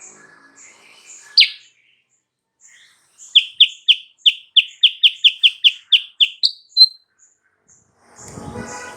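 Kutilang sutra songbird singing: one sharp sweeping call, then a quick run of about a dozen identical high notes at about four a second, ending on a higher note; a lure song meant to set off rival birds. Faint high chirps repeat throughout.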